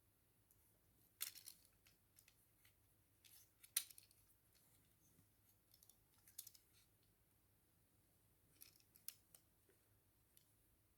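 Faint scattered clicks and taps of small parts being handled while a gadget is fitted together, a few sharper snaps among them, with near silence between.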